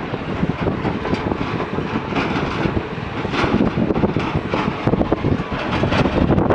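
JCB 3DX backhoe loader's diesel engine running under load, a steady rough rumble.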